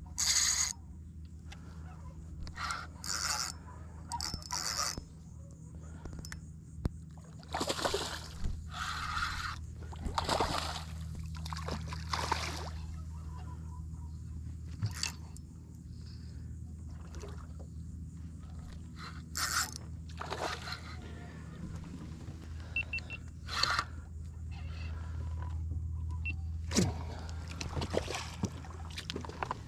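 Irregular rustling, scraping and knocking of clothing and tackle as an angler plays a hooked fish on a spinning rod from a small skiff, over a steady low hum.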